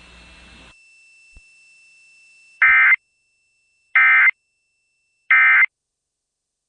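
Emergency Alert System End of Message: three identical short bursts of warbling digital data tones (the SAME 'NNNN' code), each about a third of a second long and spaced a little over a second apart, marking the end of the broadcast tornado warning.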